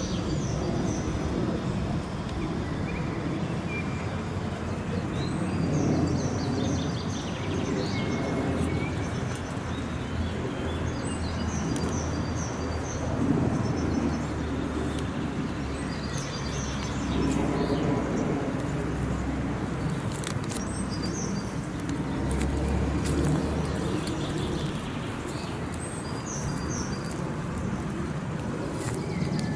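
Small songbirds chirping and singing in short repeated phrases over a steady low rumble of city traffic.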